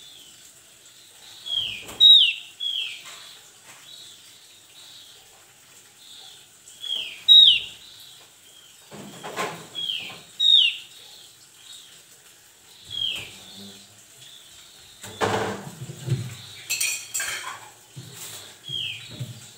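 Javan grey-throated white-eye calling: short, sharp notes that slide down in pitch, given in quick twos and threes and repeated every few seconds. There are bouts of rustling and rattling about halfway through and again a few seconds from the end.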